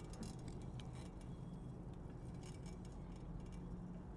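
Faint, irregular clinking and ticking rattles over a steady low hum, the sound of riding slowly along a street.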